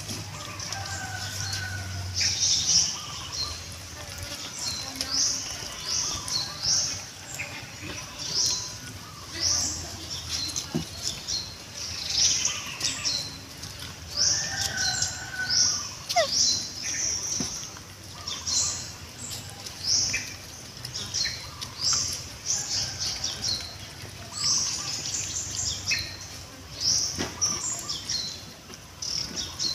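Repeated short, high chirps, roughly one or two a second, from birds, over a faint low hum.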